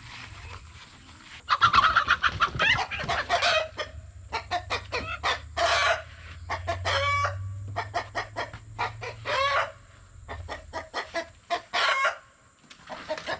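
Chickens squawking and clucking in alarm as they are caught by hand: a rapid run of loud, repeated calls that starts about a second and a half in. A low steady hum sits underneath and fades out near the end.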